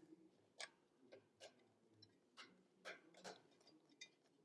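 Near silence with about eight faint, scattered small clicks and taps from parts and a small screwdriver being handled during reassembly of a Mac Pro.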